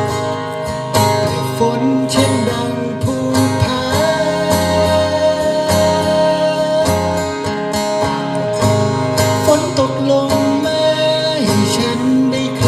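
Music: plucked acoustic guitar with a melody line that glides in pitch.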